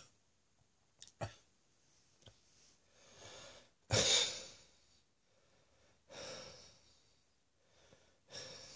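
A man breathing after a coughing fit from a lingering chest infection: four separate breaths, the loudest a sharp one about four seconds in. A few faint clicks come in the first two seconds.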